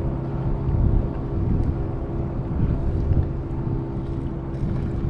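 Wind buffeting the microphone in a constant low rumble, with a faint steady hum underneath.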